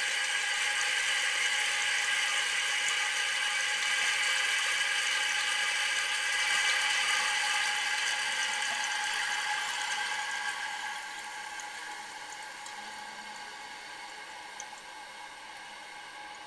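Fill valve of a 1962-1968 American Standard Cadet toilet tank hissing as water refills the tank. The hiss drops to a quieter level about ten and a half seconds in.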